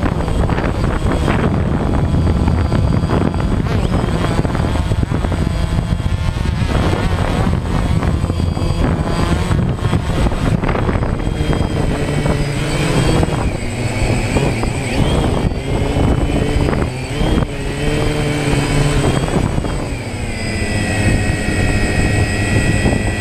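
DJI Phantom quadcopter's electric motors and propellers whining and buzzing close to the microphone. Several tones rise and fall together as the motor speeds change, and near the end they settle into a steady high whine.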